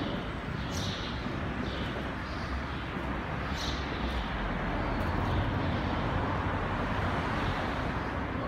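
Steady road-traffic rumble, swelling a little about halfway through, with a few footstep scuffs on concrete in the first few seconds.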